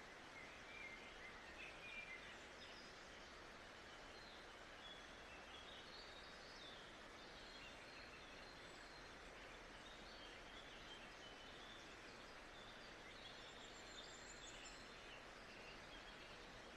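Faint nature-sound ambience: a steady hiss with small birds chirping throughout.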